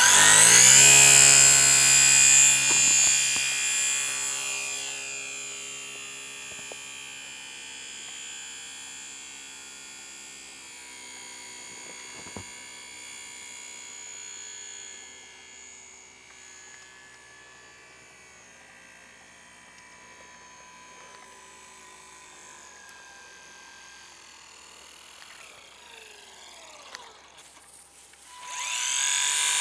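Electric motor and propeller of a Hobbyzone Super Cub radio-controlled model plane, a high whine. It is loud as the plane passes close, fades as it flies off, and swells again near the end as it comes back close.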